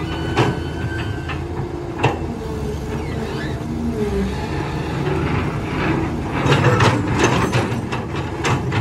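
Cat tracked excavator's diesel engine running steadily as it digs, with a sharp knock about half a second in and another about two seconds in, then a run of clanks and knocks near the end as the bucket works the dirt and stones.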